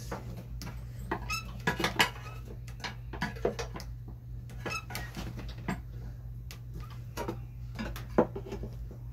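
Irregular metallic clinks and knocks of hand tools working on a Coleman generator's metal parts during teardown, loudest about two seconds in and again near the end. A steady low hum runs underneath.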